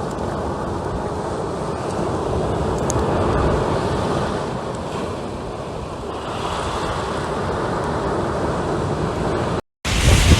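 Sea waves washing on a shore with wind rushing over the microphone, the surf swelling and easing. The sound drops out for a moment near the end, then comes back louder.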